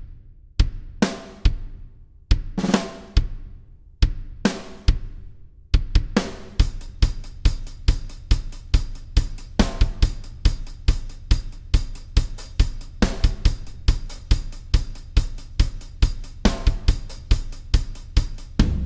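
A drum kit played solo. For about six seconds there are spaced accents, each with a ringing crash cymbal over kick and snare. Then it settles into a steady, busy groove of bass drum, snare and hi-hat.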